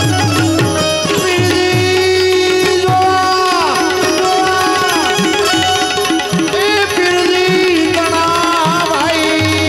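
Gujarati devotional folk music: a harmonium playing the melody over hand-drum strokes and small manjira hand cymbals, with a man singing.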